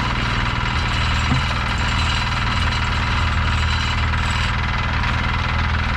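An engine of the concrete-pouring machinery running steadily, a low hum with an even hiss and rattle above it.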